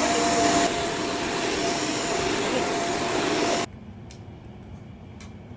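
Shark Stratos upright vacuum running: a steady whine over a loud rush of air. The sound drops slightly under a second in and cuts off abruptly about three and a half seconds in.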